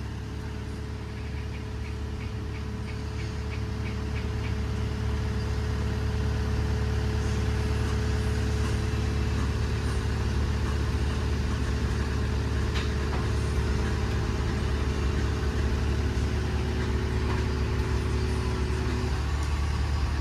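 A vehicle engine running steadily at idle, getting somewhat louder over the first several seconds and then holding level.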